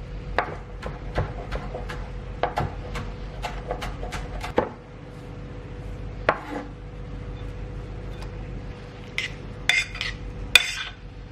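Kitchen knife chopping fresh coriander on a cutting board: a quick run of chops, then scattered knocks and a few sharper clicks near the end. A steady hum runs underneath.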